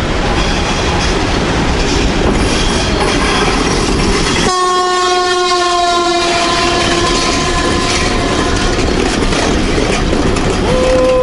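Train running with a loud rumble and wheel clatter, its horn sounding about four and a half seconds in and again near the end.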